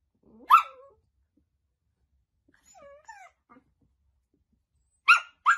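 A puppy yipping as it plays rough with a cat: one short yelp about half a second in, faint whiny calls in the middle, then two quick sharp yips near the end.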